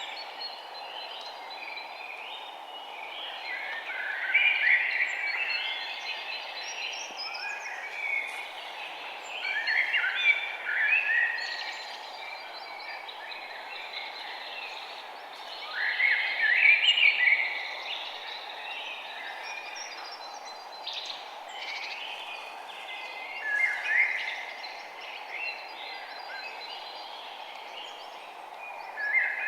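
Songbirds chirping and singing in short bursts, with a louder phrase every five to seven seconds, over a steady background hiss.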